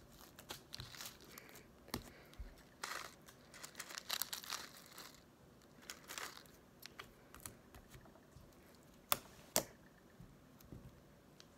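Intermittent crinkling and rustling of clear plastic as hands handle a wrapper of fishbowl beads over sticky slime, with two sharp clicks in quick succession near the end.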